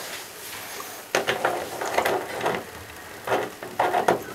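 Irregular metallic clicks and scrapes of a hex key and metal parts being worked at a bathtub faucet's cartridge valve, coming in short clusters from about a second in.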